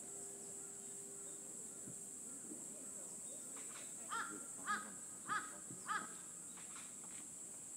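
Four harsh caw-like bird calls, each about half a second after the last, over a steady high hiss.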